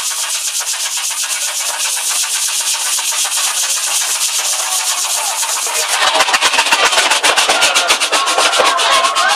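Miniature railway train running through a corrugated-metal tunnel, a fast, even clatter. About six seconds in, as the train nears the tunnel mouth, the noise grows louder and fuller, with scattered squealing tones.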